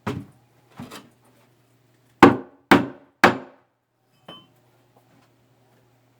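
Hammer blows on wood: two lighter strikes, then three hard blows about half a second apart, and a faint knock after them.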